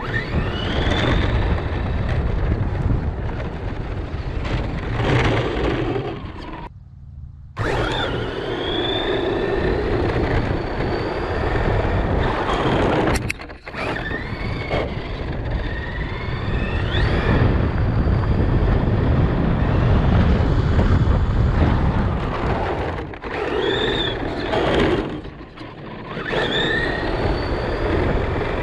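Electric RC car driven on pavement, its motor whining up in pitch again and again as it accelerates, over steady rumble of the tyres on the road and wind noise from the camera riding on the car. The sound drops out for about a second around seven seconds in.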